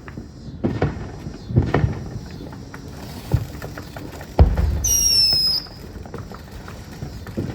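Home fireworks going off: a few thumps of shots in the first two seconds, then the loudest bang about four and a half seconds in, followed by a short, high, slightly falling whistle.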